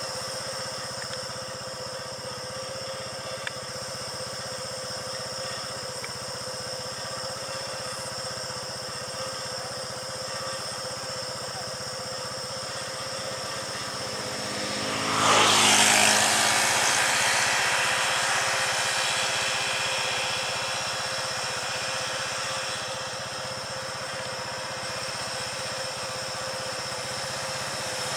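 A motor vehicle passes close by about halfway through: its engine noise swells quickly to a loud peak, then fades away over several seconds. Another engine begins to approach near the end. A steady high-pitched drone runs underneath.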